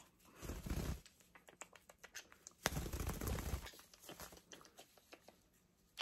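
Close kissing and nuzzling of a small parrot: scattered quick lip smacks and clicks, with two longer rustling bursts, one about half a second in and one about a second long near the middle.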